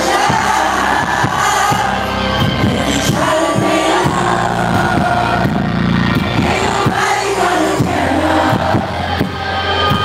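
Live concert music heard from within the audience: a male R&B singer with his band over heavy sustained bass notes, and the crowd singing along and cheering.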